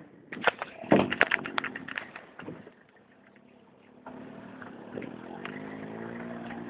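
Off-road vehicle bumping along a trail: a run of knocks and rattles in the first couple of seconds, then from about four seconds in its engine running with the pitch slowly rising as it picks up revs.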